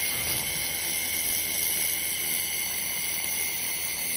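Handheld fiber laser welding torch welding 4 mm galvanized steel sheet, a steady hiss of the weld throwing sparks, with a high steady whine running through it.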